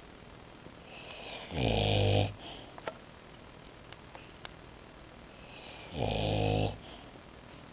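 A boxer dog snoring in its sleep: two loud snores about four seconds apart, each lasting under a second.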